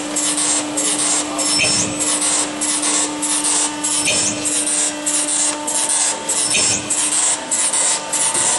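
Barwell ECO5H Plus rubber preforming machine running while making silicone O-ring preforms. Bursts of high hiss repeat about twice a second as it cycles, over a steady hum that stops near the end.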